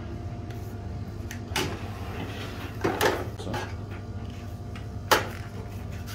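The drawer of a Philips Airfryer XXL is pulled out and its plastic basket clunks and knocks several times, the sharpest knock about five seconds in. A steady low hum runs underneath.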